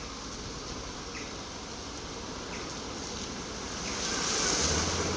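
Steady hiss of water at a flooded road ford. Near the end a vehicle's engine hum comes in and a rushing hiss of water grows louder as the vehicle starts through the flooded ford.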